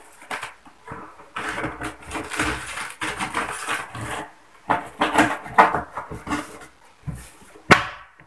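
Packing tape on a cardboard carton being cut with a blade and torn, in irregular scraping, ripping strokes, with one sharp rip near the end.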